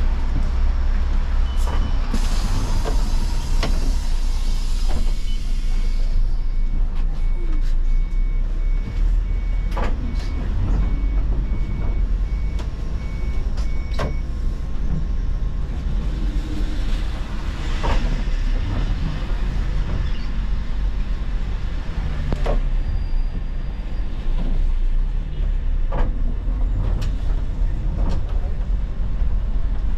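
Inside an Iveco Crossway city bus on the move: a steady low engine rumble and road noise, with scattered knocks and rattles from the body. From about a quarter of the way in until near the middle there is a run of evenly spaced, short beeps at one pitch.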